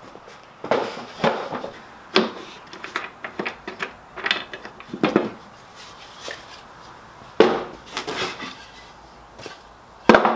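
Plywood panels and wooden support arms being set down and stacked on a table saw's top: a string of irregular wooden knocks and clatters, with a sharp hit near the end.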